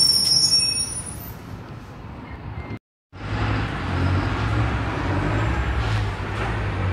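Volkswagen 17-230 city bus driving away, its diesel engine giving a steady low drone. High-pitched squeals fade out in the first second. The sound cuts out briefly about three seconds in, then the engine drone picks up again.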